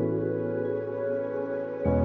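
Ambient background music: soft held chords that change to a new, fuller chord with more bass near the end.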